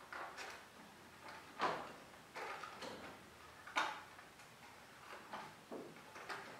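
Irregular light clicks and knocks of bottle tops and a stick being handled and fitted as wheels onto a milk-carton toy car on a table, the two loudest about one and a half and four seconds in.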